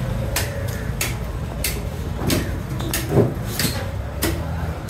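A large knife chopping into a blue marlin's flesh and bone, sharp blows landing roughly every half second, over a steady low hum.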